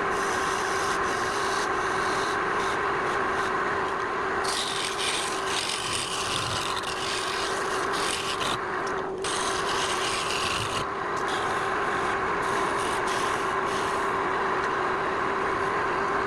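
Woodturning lathe running with a steady hum, while a tool rubs against the spinning workpiece in bursts of scraping hiss that are heaviest for several seconds in the middle.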